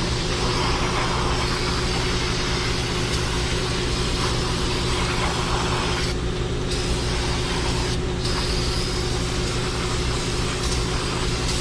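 Aerosol brake cleaner hissing in long sprays onto the rear drum brake and hub to wash off brake dust, stopping briefly twice past the middle. An air compressor runs steadily underneath.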